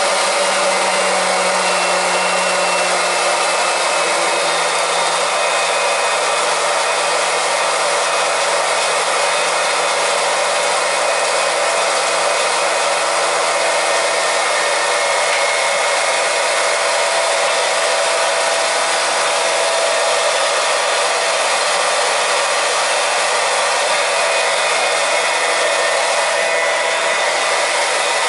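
Small electric transfer pump running steadily with a constant motor hum and hiss, pumping propylene glycol antifreeze from a bucket into a boiler's heating loop to purge the air out of the zones.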